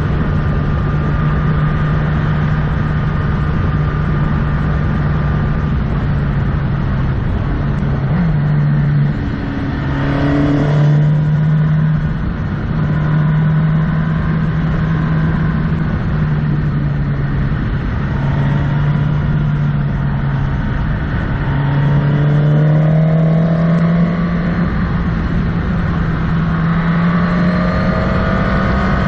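Motorcycle engine running steadily as the bike rides along, over a constant rush of wind and road noise. The engine note dips and breaks off briefly a few times, then picks up and climbs again.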